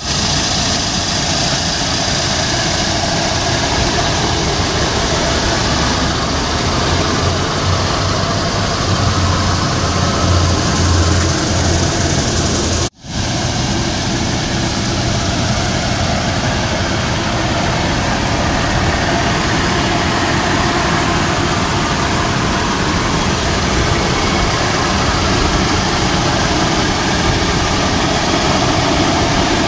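Third-generation Toyota 4Runner engine idling steadily, with a brief break about thirteen seconds in.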